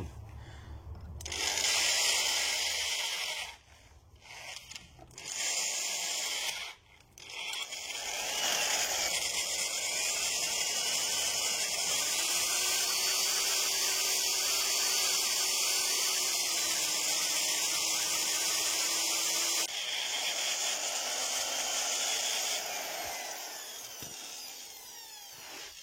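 Electric drill with a 7 mm bit boring into metal in the rear brake assembly, opening a 3 mm pilot hole to tap-drill size for an M8×1.5 thread. It runs in two short bursts, then one long steady run whose pitch wavers slightly, and it winds down near the end.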